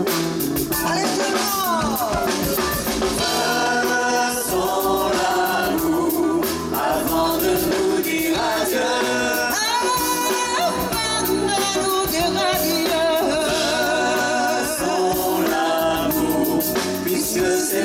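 A woman singing with a live band, backing singers behind her.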